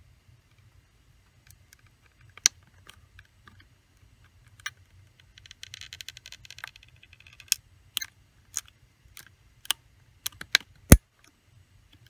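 Sharp clicks of a fingernail clipper's end prying at the rivets holding an HP 20s calculator's plastic back case, with a stretch of scraping about midway and a loud sharp click near the end.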